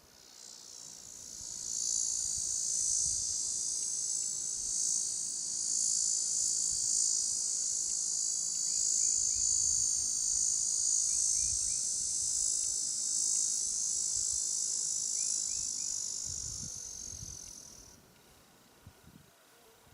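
An insect's loud, high buzzing song, like a cicada's, swelling in over about two seconds, holding steady, and fading away near the end.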